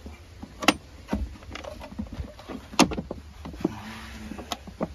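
Plastic air filter housing on a Suzuki Every's engine being closed by hand: a few sharp clicks and knocks as the lid and its clips are pressed into place, over a steady low rumble.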